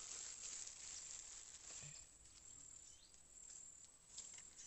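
Near silence: faint swamp-side ambience of insects chirring, with an occasional short chirp.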